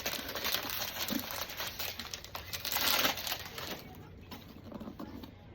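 Crinkling, rustling packaging as a perfume box is unwrapped and opened, dying down about four seconds in.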